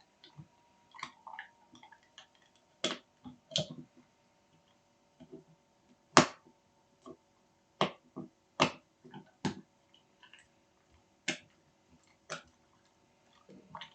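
A series of sharp, irregular clicks or smacks, about eight loud ones with fainter ones between, over a faint steady hum.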